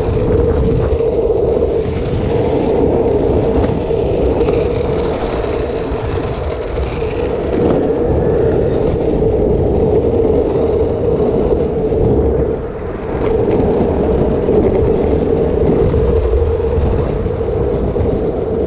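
Longboard on Five-O 64 mm Classic urethane wheels rolling fast over street asphalt: a steady, loud wheel roar that dips briefly about thirteen seconds in.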